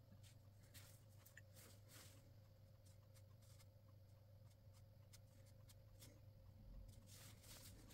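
Near silence: faint, scattered ticks of a fine paintbrush dabbing watercolour onto watercolour paper, over a faint steady hum.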